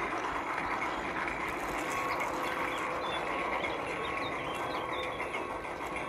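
Garden-railway train running along its track: a steady mechanical rattle of wheels and running gear, with many small clicks. A few faint high chirps come in around the middle.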